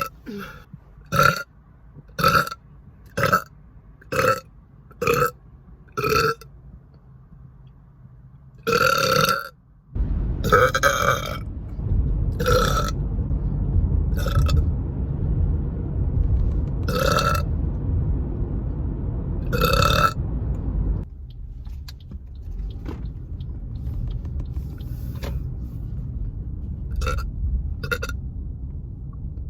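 A woman burping over and over: a quick run of about seven short burps roughly one a second, then longer, louder burps a few seconds apart, and a few smaller ones near the end. A low rumbling noise runs underneath through the middle stretch.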